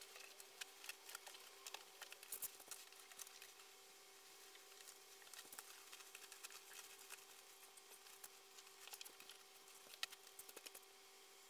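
Faint rustling and light crackles of a bedsheet being pulled over a mattress and smoothed down by hand, busiest in the first few seconds and again near the end, over a faint steady hum.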